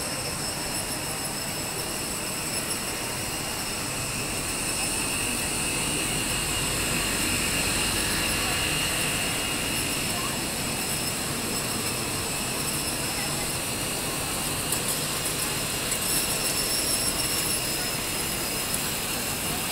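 Steady shopping-mall hubbub: indistinct voices over a constant hum, with a few faint clicks in the second half.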